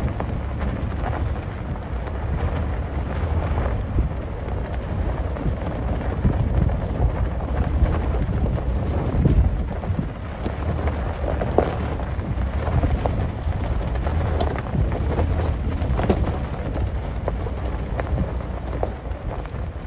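Wind rumbling on the microphone, with scattered crunches and knocks, while moving across rocky desert ground.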